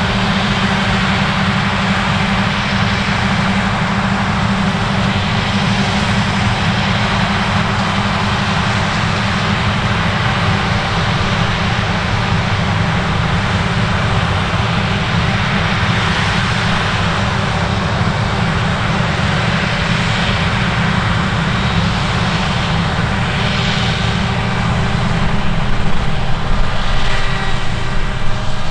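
Large diesel farm machinery running steadily at work, a continuous engine drone over the whir of the machine; it gets louder over the last few seconds.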